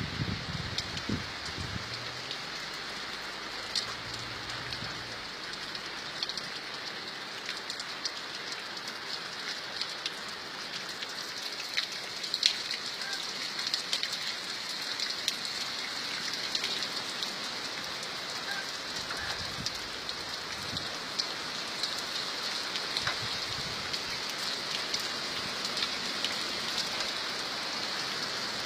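Steady rain falling: a constant hiss with many scattered, sharper drop impacts.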